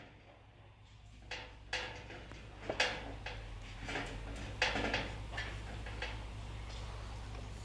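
A handful of irregular knocks and clatters over the first five seconds, as of materials being handled during building work, then fainter ticks.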